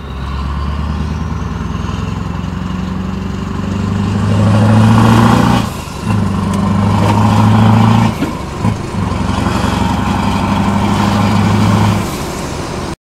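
Scania V8 truck engine heard from inside the cab, pulling along under power. The engine note briefly drops about six, eight and nine seconds in, eases off near the end, then cuts off suddenly.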